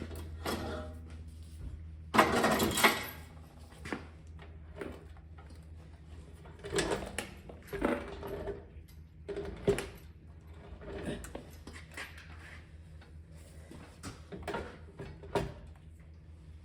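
Hand tools clinking and knocking on tractor metal during work on the tractor split, with a short rasping burst about two seconds in and scattered single clanks after.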